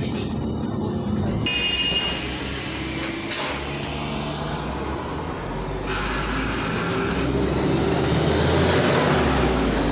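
A LiAZ-5292.67 gas-powered (CNG) city bus on the move: a steady engine and road rumble, growing louder over the last few seconds.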